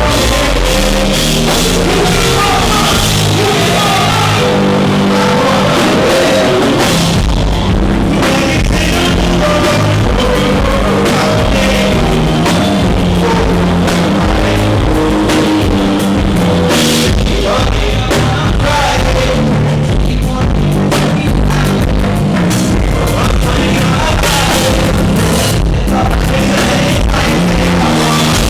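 Live band playing a loud rock-styled groove, with drum-kit hits and bass and keyboard notes, recorded through a microphone overloaded by the club's sound system.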